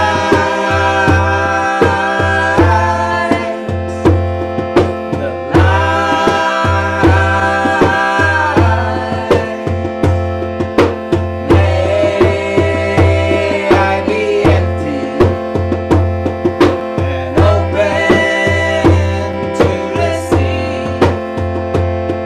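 Kirtan: a harmonium holds a steady drone and chords while a hand drum keeps a regular beat, and a woman and a man sing mantra phrases that come in every few seconds with short gaps between.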